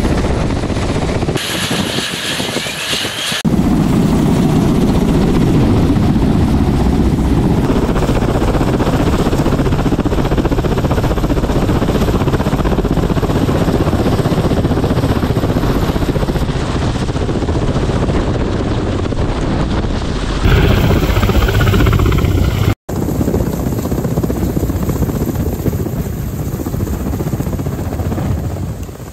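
Kamov Ka-52 attack helicopter's coaxial rotors and engines running loud and close as it lifts off and flies overhead. The sound changes abruptly several times, with one brief gap about three-quarters of the way through.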